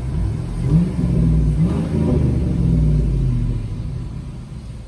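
Vehicle engine accelerating with a low rumble, its pitch rising twice as it pulls away, then easing off about three and a half seconds in.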